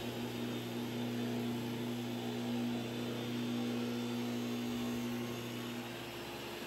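Steady drone of a running electric motor, a constant hum with fixed tones; one of the hum tones stops about six seconds in.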